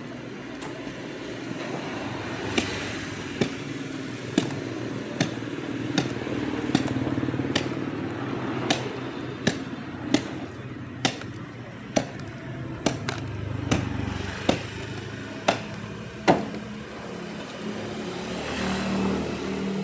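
Cleaver chopping roast pork on a wooden block: a sharp knock roughly every second, over steady street traffic with motorbikes.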